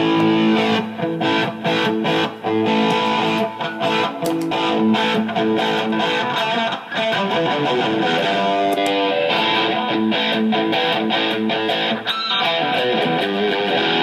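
Electric guitar played through an amplifier's own overdrive, with the pedal effects bypassed so the signal goes straight into the amp. Chords are strummed and left ringing, and the playing goes on without a break.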